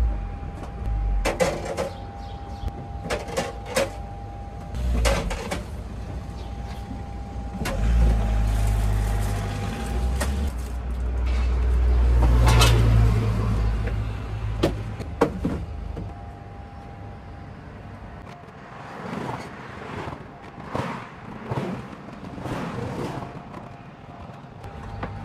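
Plastic crates and stall fittings being handled and set down on a counter: scattered knocks and clatters. A low rumble swells and fades in the middle.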